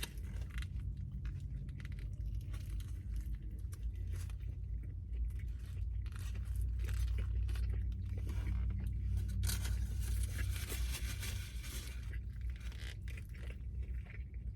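Close-up chewing and crunching of a large sandwich, with a stretch of wrapper rustling near the middle, over a steady low hum.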